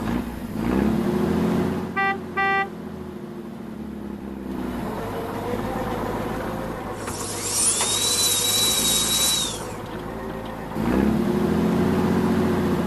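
Vehicle engine running, revving up near the start and again near the end. Two short horn beeps come about two seconds in, and a hiss with a high whine runs in the middle.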